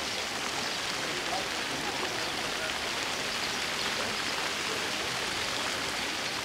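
Steady hissing background noise with faint voices mixed in.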